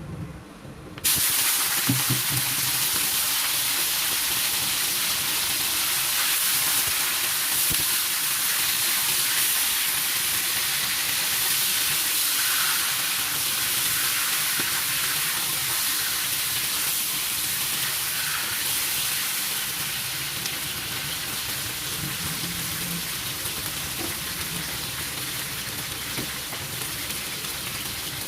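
Food sizzling in hot oil in a pan, starting suddenly about a second in and running steadily, easing a little near the end.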